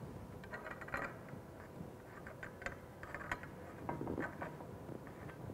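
Metal pipe union nut being turned by hand on its threads on galvanized steel pipe, giving faint, irregular small clicks and scrapes.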